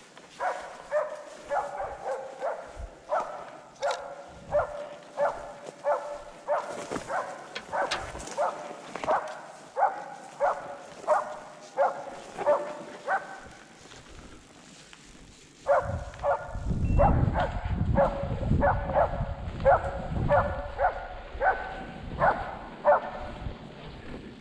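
A blood-tracking dog barking steadily, about two barks a second, in two long runs with a pause of about two seconds near the middle. A low rumbling noise runs under the second run.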